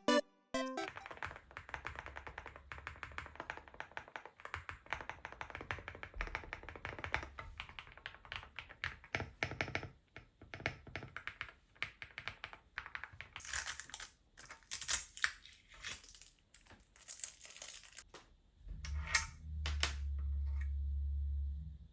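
Mechanical keyboard being typed on: rapid, uneven keystroke clacks, with a few louder clacks near the end. A low steady hum comes in for the last few seconds.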